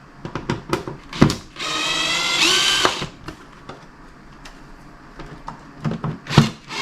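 A power drill-driver spins for about a second and a half, backing out one of the screws that hold a trunk-lid cover, its whine stepping up in pitch just before it stops. Clicks and knocks of the tool and parts being handled come before and after.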